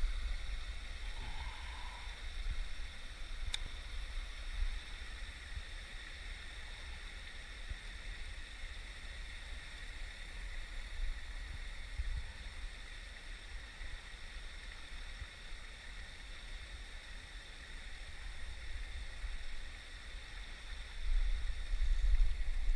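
Open-air sound on the water: a low rumble with faint water lapping, a single sharp click a few seconds in, and the rumble growing louder near the end.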